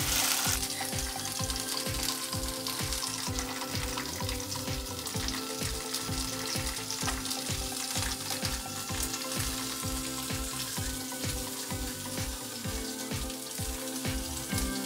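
Whole red chillies and garlic sizzling steadily in hot oil in a nonstick frying pan, the stove just switched off. Background music with a steady beat plays underneath.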